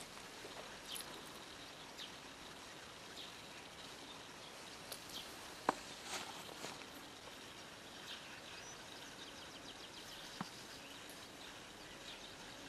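Faint outdoor ambience: a low steady hiss with scattered short, high chirps of small birds, broken by a sharp click about halfway through and another, smaller one near the end.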